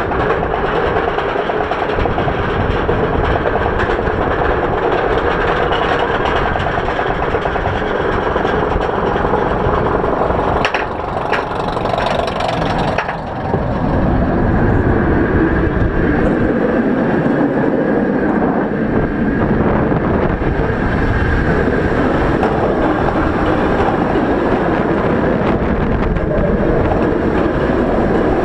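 Rougarou, a B&M floorless steel roller coaster, heard from the train: a steady mechanical rattle as it is hauled up the chain lift hill. About 13 seconds in it crests, with a brief lull and a few sharp clicks. It then goes down the first drop, and steady wind rush and wheel noise on the steel track follow.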